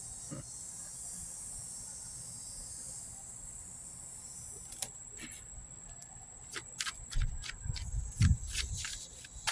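Crickets chirring steadily in the background. From about halfway through come a run of sharp clicks and a few soft low thumps.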